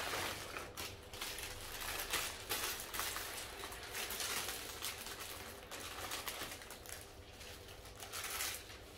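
Packaging being handled and opened: irregular crinkling and rustling with small crackles.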